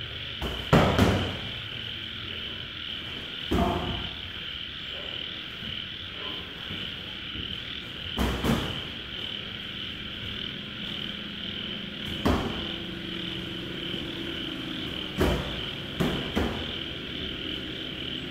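Boxing gloves landing in sparring: several sharp smacks and thuds spread out, the loudest about a second in. Under them runs a steady high-pitched chorus of night insects or frogs.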